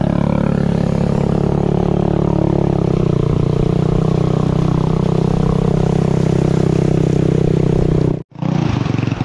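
A vehicle engine running steadily close by, its note shifting slightly about three seconds in. The sound cuts out abruptly for a moment near the end.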